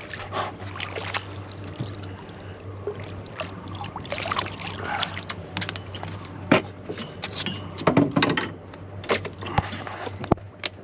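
Water sloshing and lapping against a small boat's hull, with scattered sharp knocks and clatters as a hooked fish is brought over the side and handled on deck. The loudest knocks come about two-thirds of the way in and near the end.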